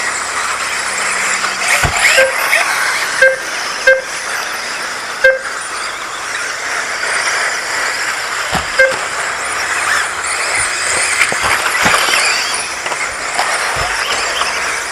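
Electric 1/10-scale 2wd off-road RC buggies racing, a steady high-pitched whirr of motors and tyres with the odd rising whine. About five short beeps cut through in the first nine seconds, the lap-timing system registering cars crossing the line.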